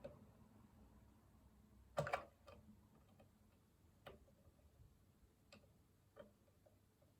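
Quiet room with scattered small clicks and taps from handling tools and parts while soldering a jack socket. A sharp double click about two seconds in is the loudest, followed by a few fainter single clicks.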